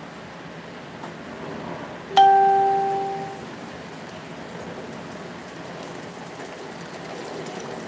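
A single bright chime rings out about two seconds in, one clear pitch with overtones that fades away over about a second, over a steady low hiss.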